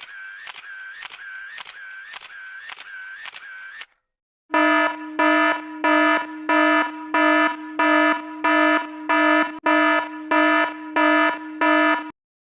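A quiet, high ringing tick repeating about twice a second. After a short gap it gives way to a loud buzzing alarm beep that pulses about twice a second, some fourteen times, and stops shortly before the end.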